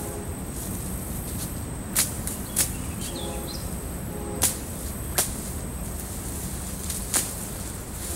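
A hand-swung blade chopping through overgrown brush and vines while clearing ground: about five sharp swishing strokes at uneven intervals.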